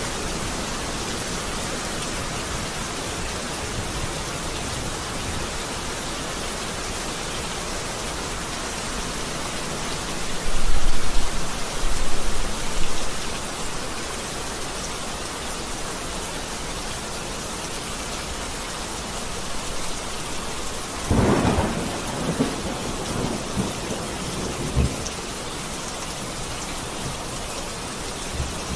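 Steady heavy rain with thunder: a low rumble swells about ten seconds in, and a sharper crack comes around two-thirds of the way through, rumbling off over the next few seconds.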